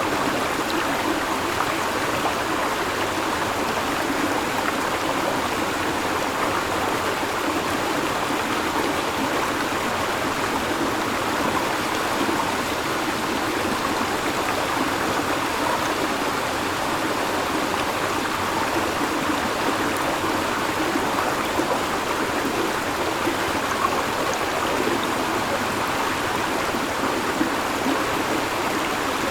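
Shallow river flowing over rocks, a steady babbling rush of water.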